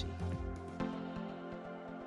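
Soft background music with sustained tones and a light, even pulse.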